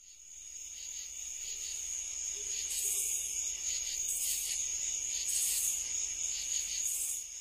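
Insect chorus, cricket-like: a steady high trill with louder hissing pulses about every second and a half. It fades in at the start.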